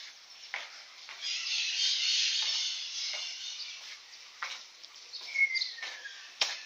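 Birds chirping and calling: a dense stretch of high chatter in the first half, scattered short chirps, and a brief falling whistle about two-thirds in. A sharp click comes near the end.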